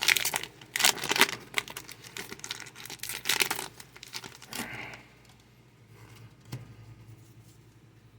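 Foil Pokémon booster pack wrapper being torn open and crinkled, in a run of short rustling bursts over the first five seconds. It then goes quiet, with a single click about six and a half seconds in.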